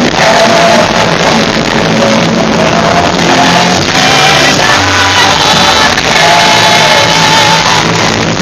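Live rock band and singers performing, with the crowd shouting along; a loud, poor-quality audience recording.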